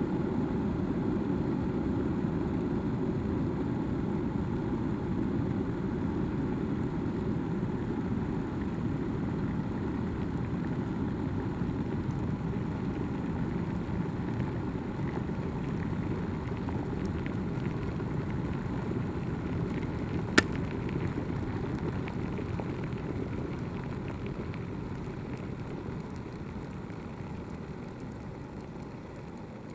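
Water in a kettle boiling with a steady low rumble. One sharp click comes about twenty seconds in, and after it the rumble slowly fades.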